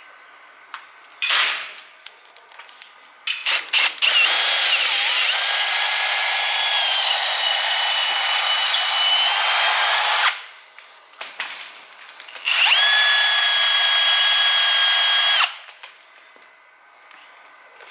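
Power drill boring off the head of a bent screw that cannot be unscrewed. It gives a short spin and a few quick trigger blips, then two long runs of several seconds each. Its whine sags in pitch under load early in the first run, then holds steady.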